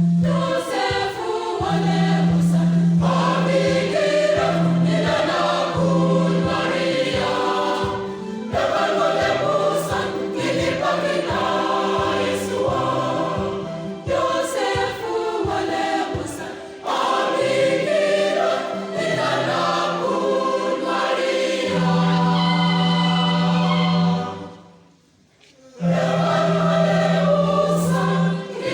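Church choir singing a gospel song in parts over a sustained low bass. Near the end the music stops for about a second, then the choir comes back in.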